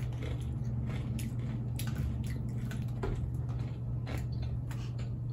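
Crunching and chewing of Takis rolled corn tortilla chips: scattered short, crisp crackles over a steady low hum.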